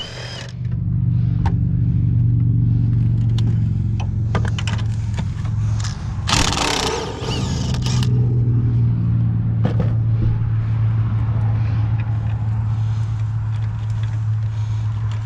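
Impact wrench run in one short burst about six seconds in, zipping off strut bolts or nuts, over a steady low machine hum, with scattered clicks of tools and parts.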